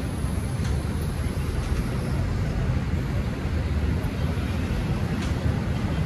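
Steady low rumble of city street traffic.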